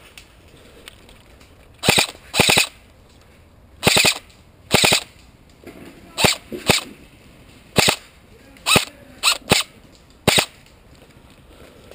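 Airsoft rifle firing about eleven short bursts of rapid shots, spaced irregularly over several seconds.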